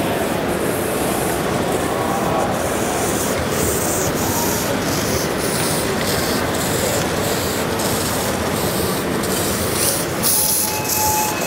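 A 5-inch gauge model steam locomotive running on its track, a steady rushing noise with the run of its wheels and motion. About ten seconds in, a steady whistle note starts and holds.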